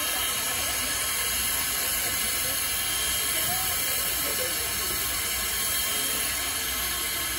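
Steady hiss of steam escaping from Strasburg Rail Road's 2-6-0 steam locomotive No. 89 as it stands at the platform. Faint voices of people nearby.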